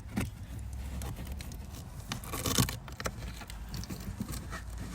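Fabric cover rustling and scraping as it is pulled by hand back over the dash-cam recorder, with a louder rustle about two and a half seconds in.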